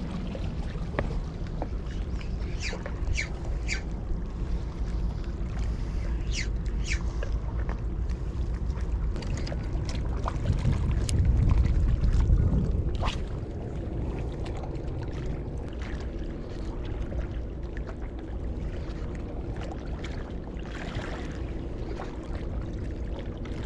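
Small waves sloshing against the rocks of a breakwater, over a low rumble that swells for a couple of seconds about halfway through, with a few scattered light clicks.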